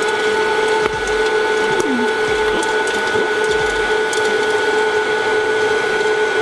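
Hot-air popcorn popper running: its fan motor blows with a steady hum and hiss, with a few scattered pops from the last kernels.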